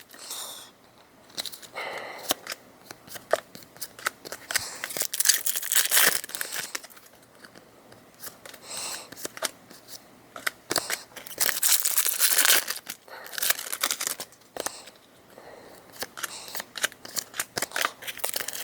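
Foil Pokémon booster packs being torn open and crinkled one after another, with repeated rustles and sharp clicks of card handling.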